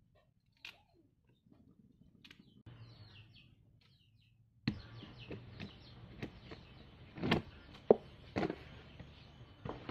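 Scattered light clicks and knocks from food being handled in metal kitchen bowls, with a few faint bird chirps. Several sharper knocks come in the second half.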